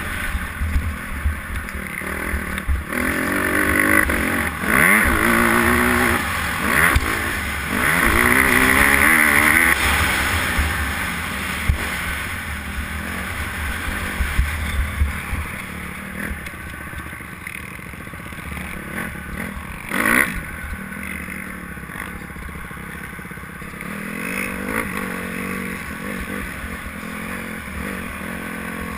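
Honda motocross bike engine revving up and down as it is ridden around a dirt track, heard from a camera mounted on the bike with wind rumbling on the microphone. The pitch climbs and drops in quick runs through the first ten seconds, then runs steadier and quieter, with a sharp clatter about twenty seconds in.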